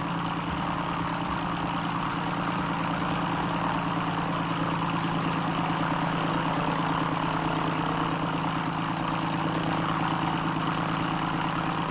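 Single-engine light airplane's piston engine and propeller running steadily, a constant engine hum under propeller noise.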